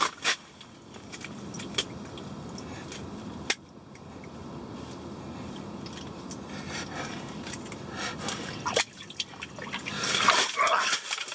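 Water splashing and dripping at an ice-fishing hole, with scattered single drips and clicks over a steady low rush. Near the end comes a louder flurry of splashing.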